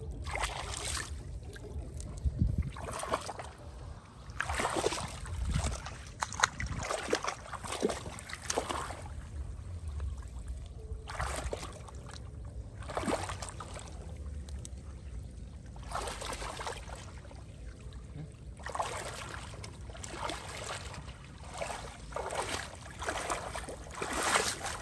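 Hands splashing and sloshing in shallow pond water in irregular bursts, over a low steady rumble.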